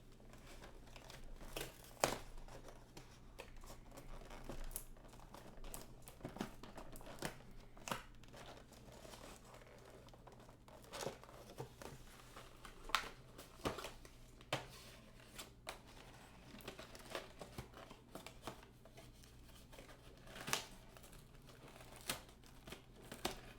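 Action-figure packaging being opened by hand: cardboard and plastic crinkling and tearing, with irregular sharp clicks and snaps.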